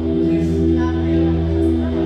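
Live band music: held chords over a steady low bass, from a small acoustic band with keyboard and acoustic guitar.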